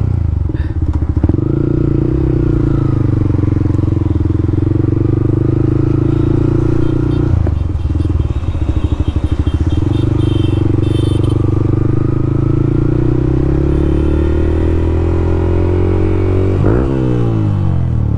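Motorcycle exhaust running loud with the DB killer (silencer baffle) removed, the bike cruising at a steady engine speed. The note turns rougher and pulsing for a couple of seconds mid-way, and dips briefly in pitch near the end before picking up again.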